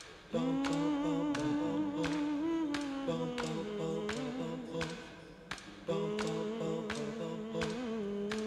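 Soundtrack music: a voice holds long, slightly wavering sung notes over a steady ticking pulse, about two ticks a second.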